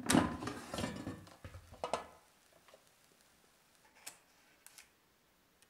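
A plate being set down on a silicone trivet on a wooden table: a cluster of knocks and rustling over the first two seconds. Then two light clicks, about four and nearly five seconds in, as wooden chopsticks pick up a dumpling.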